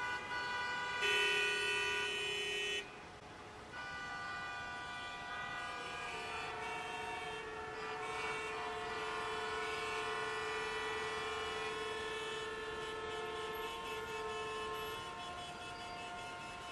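A loud, steady horn blast about a second in, lasting nearly two seconds. From about four seconds in come long, held horn-like chord tones whose notes shift several times.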